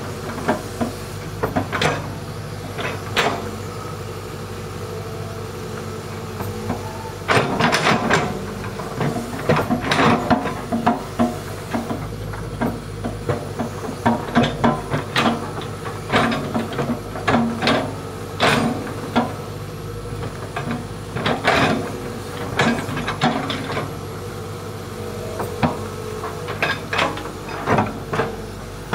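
Hitachi hydraulic excavator's diesel engine running steadily under digging load, with irregular sharp knocks and scrapes from the bucket working into the earth bank.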